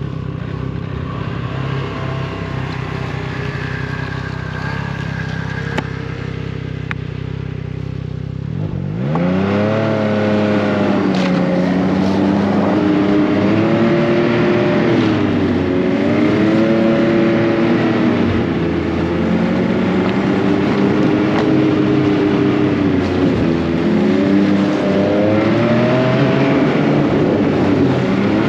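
Snowmobile engine running at low, steady revs, then about nine seconds in the revs climb sharply and it runs on louder, the pitch rising and falling with the throttle as the sled rides along the trail.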